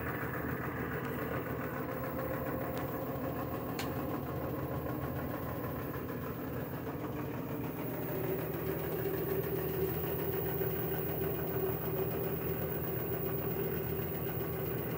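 LG washer-dryer combo running with its top panel off, its drain pump and drum motor giving a steady mechanical hum as the drum starts to spin up after the drain pump was replaced. A higher steady tone joins the hum about eight seconds in.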